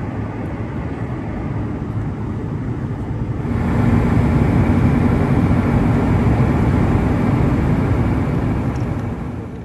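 Steady rumble of a moving vehicle with a low hum underneath. It gets louder about three and a half seconds in and eases off near the end.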